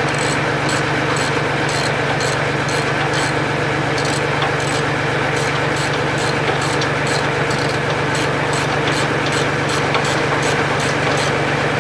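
An engine idling steadily, with a light regular ticking about three times a second.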